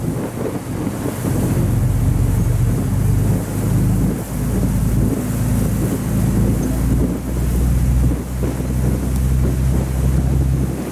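A tour boat's engine runs with a steady low drone as the boat moves out of the harbour, with wind buffeting the microphone.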